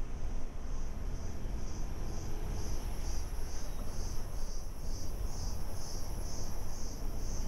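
A chorus of forest insects calling in a high, pulsing trill that swells about twice a second, over a steady low rumble.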